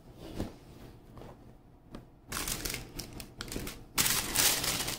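Cardboard shoebox opened with a few taps and a sliding, scraping lid, then tissue paper inside rustling and crinkling, louder from about four seconds in.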